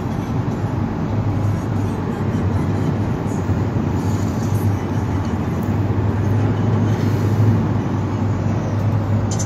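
Steady road and engine noise inside a car's cabin at highway speed: a constant low rumble with tyre hiss.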